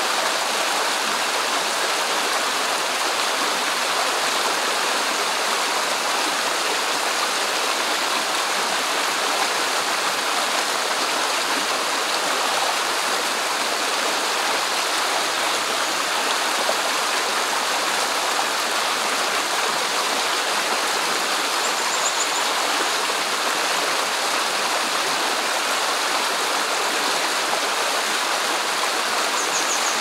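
Shallow rocky stream flowing over and between moss-covered stones: a steady, even rush of running water.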